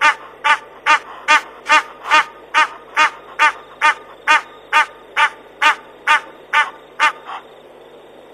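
A bird calling over and over in a steady series of short, pitched calls, about two a second. The calls stop about a second before the end.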